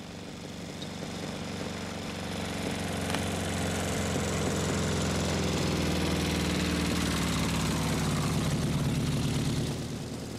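BMW motorcycle-with-sidecar engine running as it approaches, growing louder over the first several seconds, holding steady, then dropping off shortly before the end.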